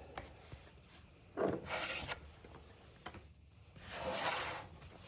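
Trading cards and their packaging being handled: two rubbing, rasping swipes, one about a second and a half in and a longer one around four seconds in.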